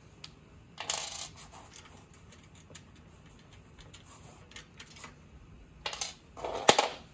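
Small metal clicks and a brief scrape as screws on a cart's metal mounting bracket are worked loose with an Allen key. Near the end comes a cluster of sharper metallic clinks, the loudest a single sharp clink of a small metal part or tool being set down.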